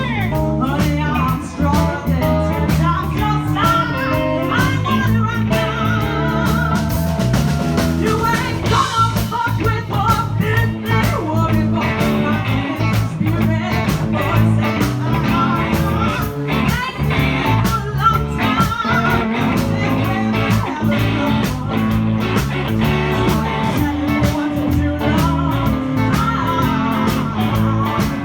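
Live blues band jamming in a swing feel: electric guitar, bass and drums, with a vocalist improvising wordless scat lines over them.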